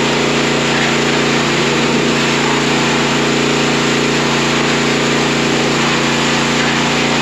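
Bilt Hard 3500 PSI gas pressure washer's 224cc single-cylinder engine running at a constant speed, with an even hiss of high-pressure spray over it.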